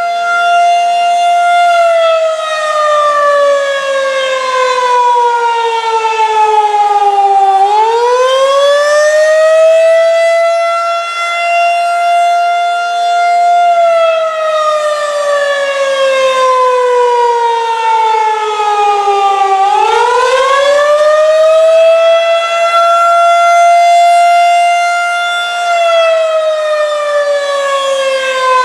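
Federal Signal 2001-SRN "Roundback" rotating tornado siren, heard up close, running its attack signal. The pitch winds up quickly, holds high for a few seconds, then winds slowly down, and this repeats about every twelve seconds.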